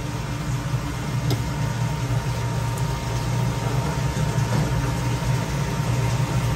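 Steady low mechanical hum of a kitchen fan running, with a thin constant whine above it.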